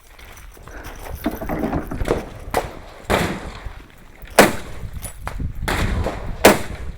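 Gunshots fired at a slow, steady pace: three loud shots about one and a half to two seconds apart in the second half, each with a short echo, after a couple of fainter cracks.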